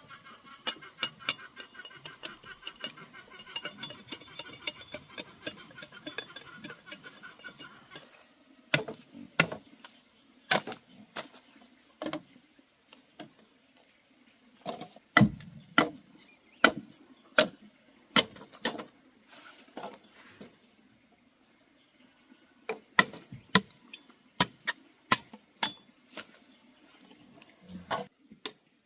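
A series of sharp, irregular knocks, some hard and heavy, coming in clusters through the middle and again near the end. During the first eight seconds a steady high-pitched trill runs underneath.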